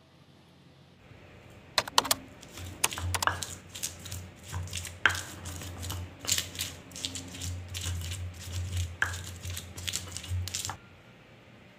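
Small knife cutting red chilies over a stone mortar, the blade clicking and tapping on the stone in quick irregular strokes. The strokes start about two seconds in and stop about a second before the end.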